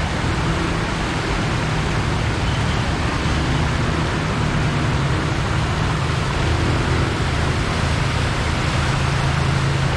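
Floodwater rushing steadily along a flooded street and around a standing person's legs. A motor vehicle's engine hums underneath, getting louder from about halfway through.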